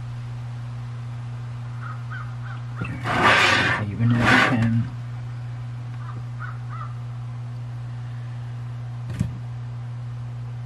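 A steady low electrical hum, with two loud, harsh, noisy sounds of about a second each, back to back, about three seconds in. There is a sharp click about nine seconds in.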